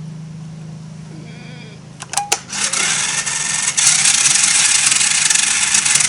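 A couple of clicks, then the motorised moving target starting up: a rising whir that settles into a loud, steady rattling whir as the target moves.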